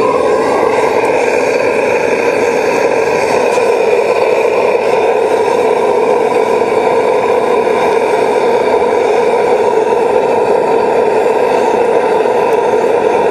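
Homemade metal-melting furnace running: a loud, steady roar of forced air and flame with a constant whine in it, shifting slightly in pitch right at the start.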